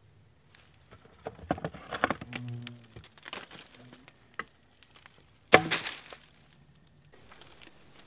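Handling noise as someone shifts gear about inside a cramped rock hollow: scrapes, rustles and a string of knocks, with one sharp, loudest knock about five and a half seconds in.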